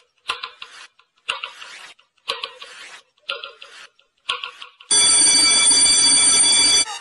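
Clock ticking, five ticks about a second apart, then an alarm clock ringing loudly for about two seconds and stopping abruptly: a midnight countdown-and-alarm sound effect.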